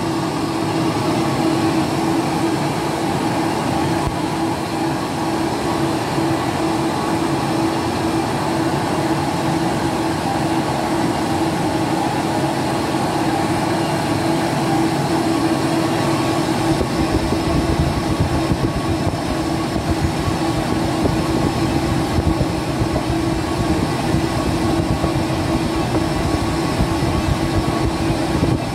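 Vertical lathe running, its table turning a submersible pump casing as it is machined: a steady mechanical drone with a constant hum. A deeper rumble joins a little over halfway through.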